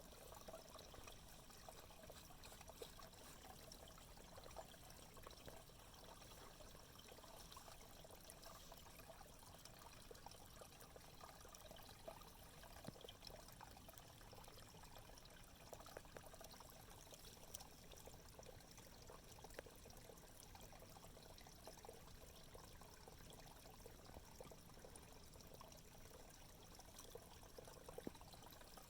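Faint, steady trickle of shallow creek water.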